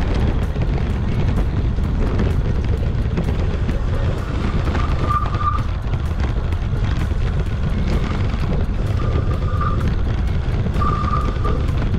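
Wind buffeting a GoPro mounted on an electric mountain bike riding a sandy forest track, a steady deep rumble, with tyres rolling over the ground and small rattles and clicks from the bike. Three short high tones come in the second half.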